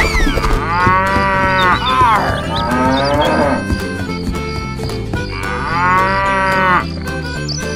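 Cattle mooing: a long moo that falls in pitch at the end, a rougher, shorter call right after it, and another long moo near the end. Music plays steadily underneath.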